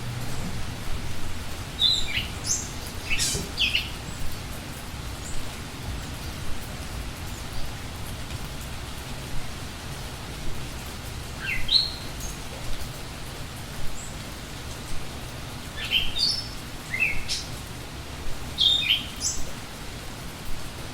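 Steady rain hissing, with a bird calling in short high chirps: a cluster a couple of seconds in, a few more around the middle, and a longer run near the end.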